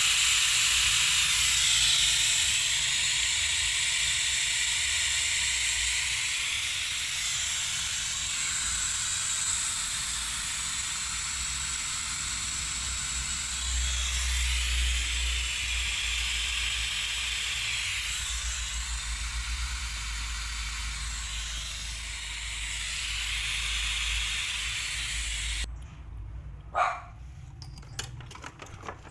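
Steady hiss of pressurized gas rushing out of a line, which cuts off suddenly near the end, followed by a few clicks and knocks.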